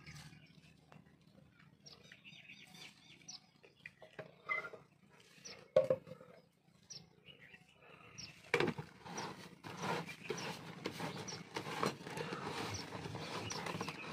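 Plastic parts of an electric paint spray gun being handled and fitted together: light clicks and scraping as the paint cup is put onto the gun. A sharp knock comes about six seconds in, and the handling rattle gets denser from about eight seconds on.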